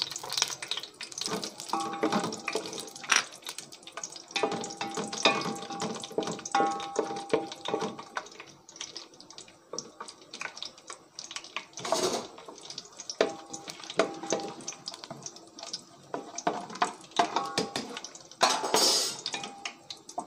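Cashews frying in ghee in a metal pot, a soft sizzle under the clicks and scrapes of a wooden spoon stirring against the pot. Louder bursts of hissing come about twelve seconds in and again near the end.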